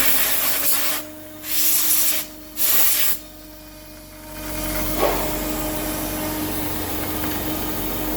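Home-built PrintNC CNC router milling a 6061 aluminium part: the spindle runs with a steady tone under a loud hiss. The hiss cuts out and back in twice in the first three seconds, drops away for over a second, then returns and runs steady, with one short sharp sound about five seconds in.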